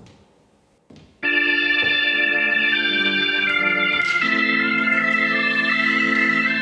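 Organ music: two short knocks, then about a second in a loud held organ chord begins, with a slow melody moving above it.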